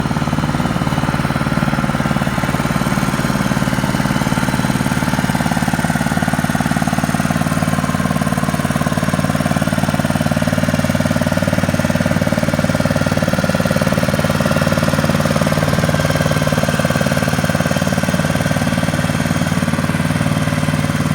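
Motorised sand sieving machine running steadily, its drive engine holding a constant drone with a low, even hum.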